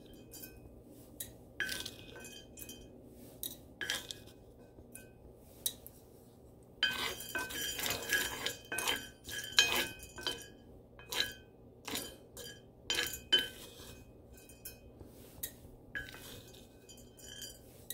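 Wooden spatula stirring and scraping coffee beans around a small cast iron skillet during roasting: irregular clicks and clinks of the beans and the wood against the iron, busiest from about seven to ten seconds in.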